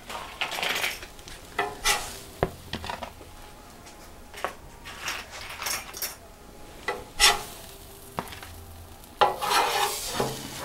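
Metal spatula scraping and knocking on a flat-top griddle as a blackened fish fillet is lifted off, over a faint sizzle. The scrapes come in irregular strokes, with a longer, louder scrape near the end.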